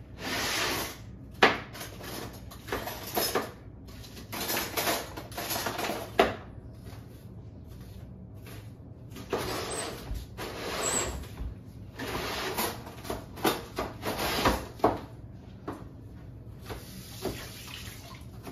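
Kitchen tap water running in short bursts of a second or so, with a few sharp knocks in between.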